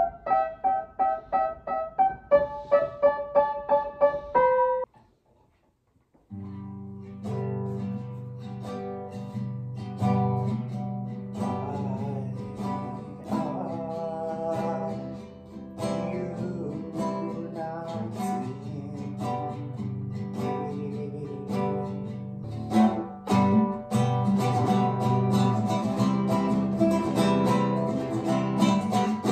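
Upright piano played in quick, evenly repeated chords that step up in pitch, stopping abruptly about five seconds in. After a short break, acoustic guitar music plays steadily and grows louder a little past the middle.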